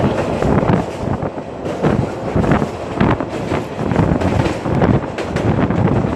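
Gusty wind buffeting the microphone, loud and irregular, with no steady rhythm.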